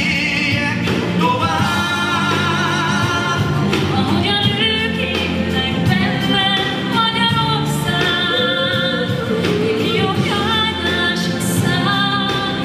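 A children's group singing a song together with instrumental backing music.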